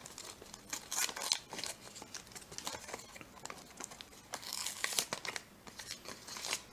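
Foil wrapper of a trading-card pack being torn open and crinkled by hand: irregular crackling and rustling.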